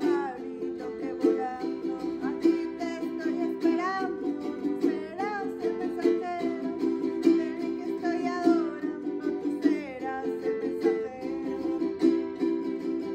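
A song: a small plucked string instrument strummed in steady chords, with a voice singing a gliding melody over it.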